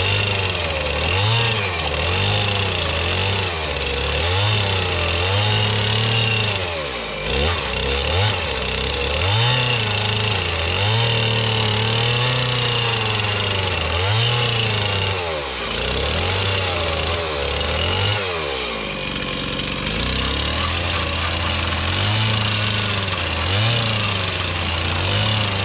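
A small gasoline engine runs throughout, its revs rising and falling over and over every second or few, and it cuts off suddenly at the end.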